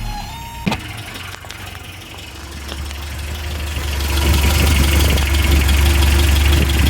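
Toyota 22R four-cylinder engine idling steadily, with its exhaust manifold stud newly replaced. The leak's noise is gone and it sounds much better. A click comes just under a second in, then the idle grows louder over a couple of seconds and holds steady.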